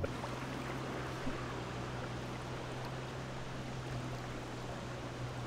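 Jet ski engine running steadily at low speed, a constant low hum over a faint wash of water.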